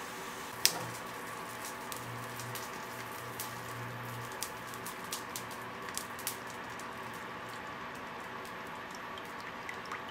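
Cooking oil pouring into an aluminium pan on an induction cooktop, with scattered small ticks and crackles as it hits the metal, over the cooker's steady hum. A single sharp click comes about half a second in.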